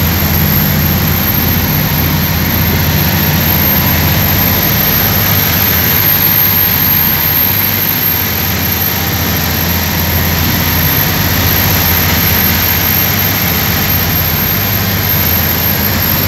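Motorboat engines running steadily at cruising speed, under the rush of the churning wake and spray at the stern.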